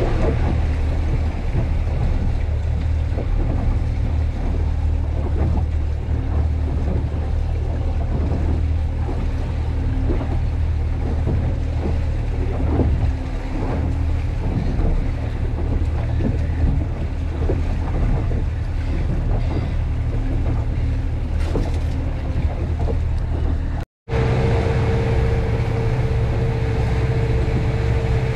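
Small boat's engine running steadily with wind and water noise. About 24 seconds in the sound drops out for an instant and comes back as a steady engine note with a higher whine over it.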